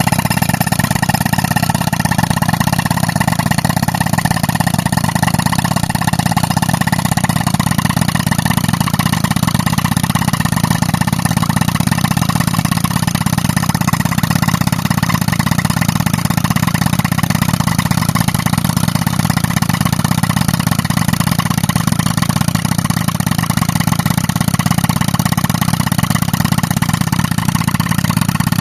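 Tractor engine running steadily under load, driving an air compressor for pneumatic rock breaking.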